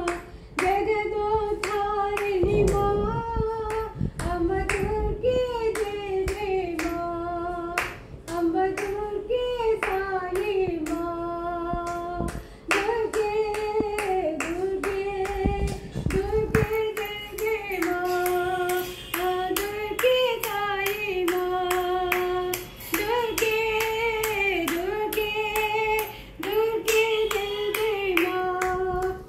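A woman singing a devotional song to the goddess Durga solo, without instruments, clapping her hands in a steady beat to keep time.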